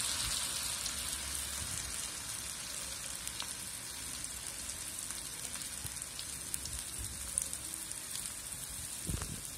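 Mung and urad dal pakora batter deep-frying in hot oil: a steady sizzle with small scattered crackles, just after the spoonfuls of batter have gone into the preheated oil.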